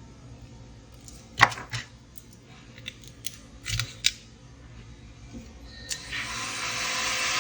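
A few sharp clicks and taps of small tools handled on a workbench, then about six seconds in a hot air rework station starts blowing with a steady hiss.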